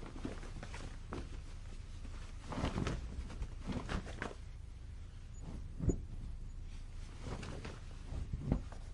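Cloth flapping gently on a clothesline: soft, irregular flaps, the strongest about three seconds in, about six seconds in and near the end, over a low steady rumble.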